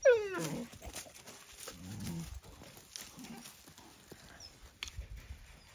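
A young dog gives one loud cry near the start that slides down in pitch, followed by softer low dog sounds and a sharp click later on.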